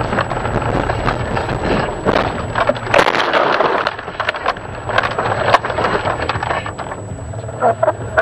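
Car running off a snowy road into a field: a hard jolt with snow and debris striking the body about three seconds in, then rumbling and knocks as it bumps across the rough frozen ground, with another sharp knock about halfway through.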